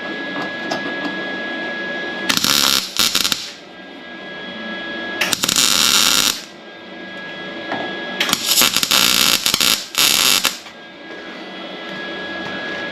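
Welding arc crackling in five short bursts, each about half a second to a second long, as new sheet-metal cab corner and rocker panel pieces are welded in with a backer piece behind. A steady hum runs between the bursts.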